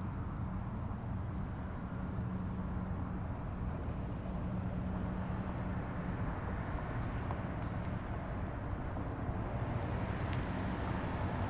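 Steady engine and tyre noise heard from inside a moving car's cabin, a low even hum with road rumble.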